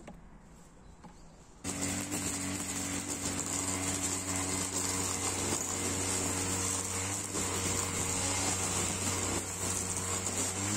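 Grass trimmer's small engine running steadily at high revs while cutting grass, with a steady buzz and a high whine. It comes in abruptly about two seconds in, after a few faint taps.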